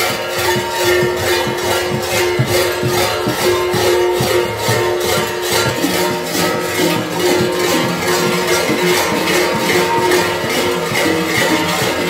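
Kuker bells (hlopki), many large metal bells worn on a kukeri costume belt, clanging together in a dense, rhythmic jangle as the wearer moves, with a few steady ringing tones held underneath.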